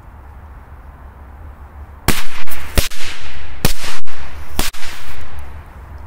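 Small firecrackers exploding: four sharp, loud bangs about a second apart, starting about two seconds in, each with a short echo.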